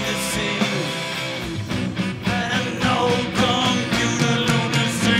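Live rock band playing a heavy rock song: electric guitar over bass and drums, with a steady beat.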